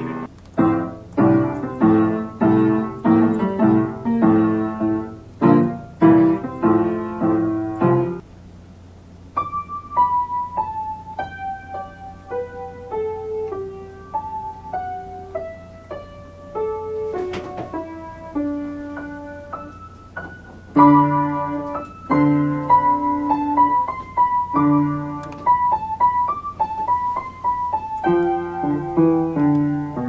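An upright piano played by a pianist who hears through a cochlear implant. For the first eight seconds it plays loud repeated chords. After a cut it plays a slower melody stepping downward over a low steady hum, and near the end chords return under a melody.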